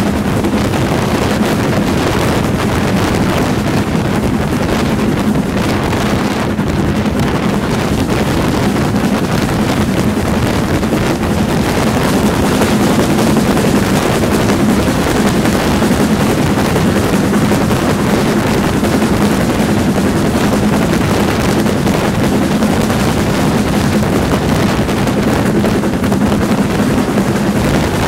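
LMS Black Five 4-6-0 steam locomotive no. 45379 working a train, heard at close range from the coach coupled behind it. A steady din of the engine and wheels on rail, with wind buffeting the microphone.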